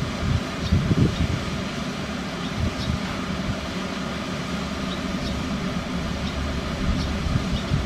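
Steady low background rumble, with wind buffeting the microphone in the first second and faint short high chirps now and then.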